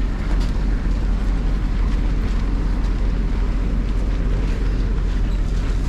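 City bus engine idling at the stop with its door open, a steady low rumble.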